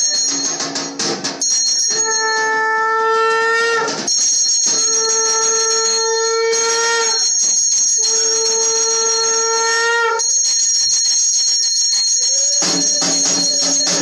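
Puja hand bell rung continuously, with three long blasts of a conch shell (shankh), each about two seconds and rising slightly in pitch at the end.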